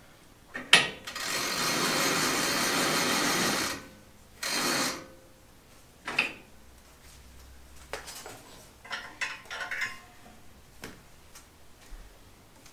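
Handheld power tool running in a steady burst of about three seconds after a click, then a shorter second burst, as a fastener is driven while the winch is wired and mounted. Light clicks and knocks of tools and parts being handled follow.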